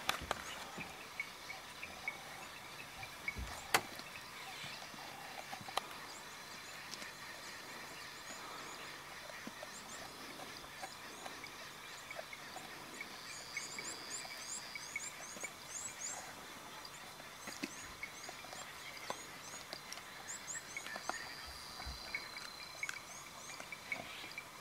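Faint bush ambience of birds and insects calling. About halfway through and again near the end comes a run of quick, high chirps over a held high trill, with a few soft clicks scattered through.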